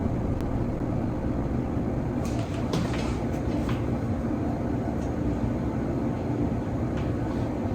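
A steady low mechanical hum or rumble, with a few faint light clicks about two to four seconds in.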